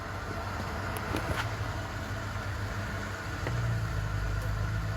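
Steady low hum of an idling engine in the background, growing louder about three and a half seconds in, with a few light clicks and taps.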